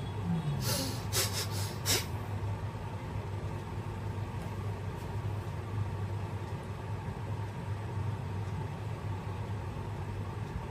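Steady low background rumble, with a quick run of four or five sharp swishes about a second in as a cotton hand towel is pulled off the face and flicked.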